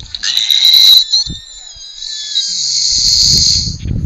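A woman snoring, heard through a Skype call's compressed audio: two long hissing snore breaths, the second ending in a rough low rattle, with a faint thin whistle between them.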